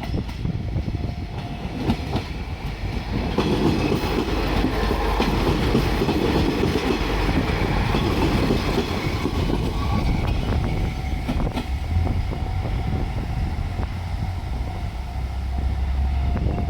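JR Shikoku diesel multiple unit passing, its wheels clacking over the rail joints over a low diesel rumble. The noise swells about three seconds in and eases off after about ten seconds.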